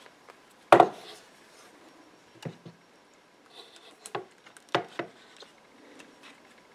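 Handling knocks and rustling as a padded clamp is fitted over the taped wooden rifle stock on a workbench: one sharp knock about a second in, then a few softer knocks.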